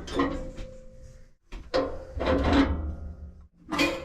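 Knocks and clatter from handling the bandsaw's metal housing and parts during a blade change, in three bursts, each with a short metallic ring.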